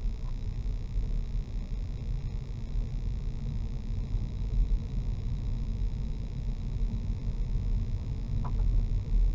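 Steady low rumble of a car driving along a lane, its engine and tyre noise heard from inside the cabin through a dashcam's microphone.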